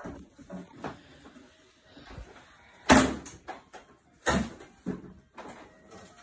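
Sharp knocks in a room: a few light ones, then two loud ones about a second and a half apart in the middle, like something being set down or a door or cupboard being closed.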